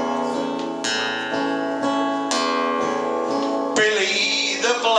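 Acoustic guitar strumming chords between verses of a sung folk song, a fresh chord struck every second or so and left to ring. A man's singing voice comes back in near the end.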